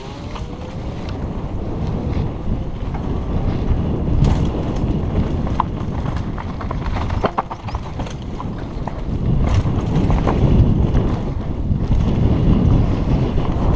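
Wind buffeting a helmet-mounted camera's microphone as a mountain bike rolls fast down a dirt and rock trail. Tyre rumble on the trail runs underneath, with a few sharp rattles and knocks of the bike over rough ground. The noise grows louder in the second half.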